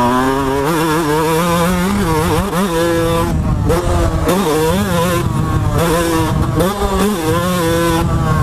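Yamaha YZ125 two-stroke dirt bike engine at full race pace, its pitch climbing and dropping over and over as the throttle is worked and the gears change.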